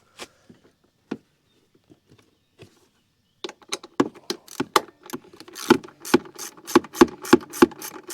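A few scattered clicks and knocks of hand tools being handled, then about three and a half seconds in a ratchet wrench starts clicking in quick back-and-forth strokes, about two a second, working the 10mm seat bolts.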